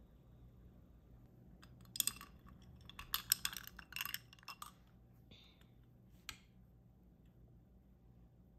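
A quick run of light clinks and clicks of small hard objects being handled, starting about two seconds in and lasting a couple of seconds, with one more click near six seconds.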